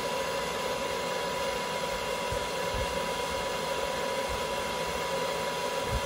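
Handheld hair dryer running steadily: a constant rush of blown air with a thin steady whine.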